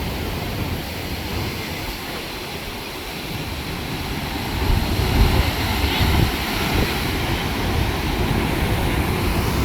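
Big ocean waves breaking and washing over a seaside rock pool, with wind rumbling on the microphone. The surge swells louder about four and a half seconds in.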